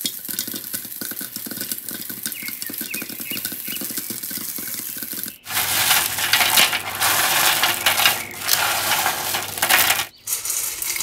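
Popcorn kernels popping in a frying pan under a glass lid, a dense crackle of many small pops. About five seconds in it cuts to louder rustling and crunching as hands toss through a tray of caramel-coated popcorn.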